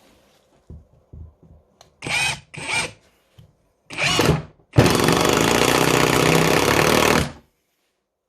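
Kimo 20V cordless impact driver on its medium setting driving a wood screw into a 2x4. Three short whirring spins come first, then about two and a half seconds of rapid hammering impacts that cut off sharply. A few light knocks from handling come before it.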